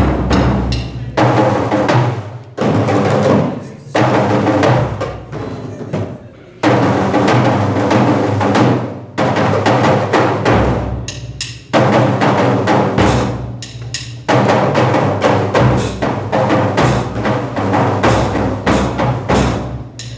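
Boys' drum ensemble playing a driving rhythm: a large bass drum struck with mallets under quicker strokes on smaller hand-held drums. The playing comes in loud phrases of a few seconds each, with short breaks between them.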